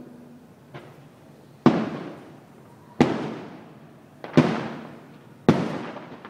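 Aerial firework shells bursting: a faint pop about a second in, then four loud booms roughly a second and a quarter apart, each trailing off in a long fading echo.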